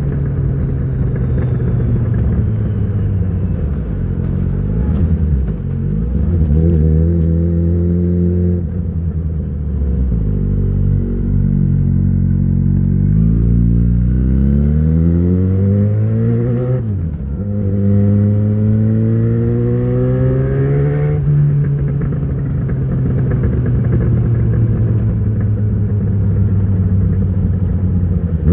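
Yamaha XJ6 600 cc inline-four on the move through an Ixil full exhaust with the dB killer fitted. The engine note rises under throttle, drops sharply at a gear change about 17 seconds in, climbs again, then eases off and falls away as the bike slows.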